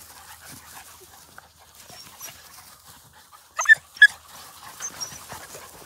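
A beagle puppy gives two short, high-pitched yelps about half a second apart, a little past halfway through, over faint rustling of paws in grass.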